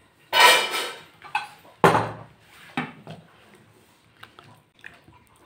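A metal ladle scraping and clanking against the inside of an open pressure cooker while stirring thick curry. There is a loud scrape about half a second in and a sharp clank about two seconds in, then a few lighter clinks.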